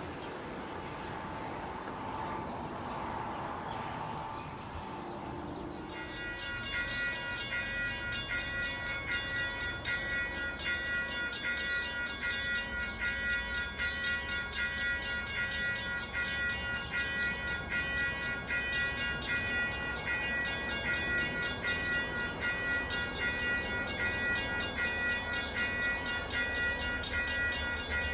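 Low background rumble, then from about six seconds in a railway warning bell ringing over and over in a fast, steady rhythm.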